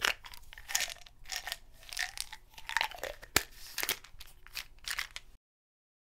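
Pills rattling and clicking in a pill bottle as they are shaken and tipped out, an irregular run of small clicks and rustles with one sharp click about three and a half seconds in. The sound cuts off suddenly just after five seconds.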